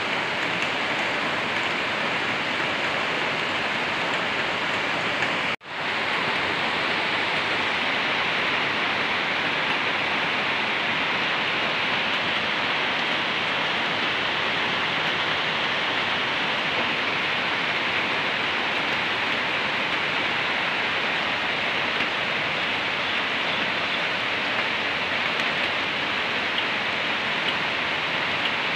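Heavy rain pouring steadily onto corrugated metal roofs, a dense even hiss that briefly drops out about five and a half seconds in.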